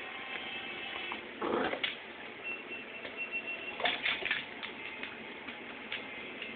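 A Labrador puppy playing with an adult Labrador on a wooden floor: scuffling, with a short rough burst about a second and a half in and a cluster of clicks and knocks near the middle. A thin high whine is heard for about a second.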